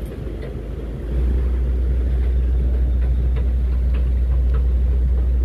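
A deep, steady rumble sets in about a second in and holds on the deck of a working vessel in strong wind, with a few faint ticks over it.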